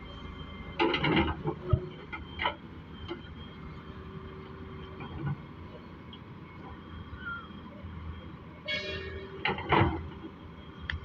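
Heavy machinery engine running steadily, with sudden bursts of clanking and scraping about a second in and again near the end.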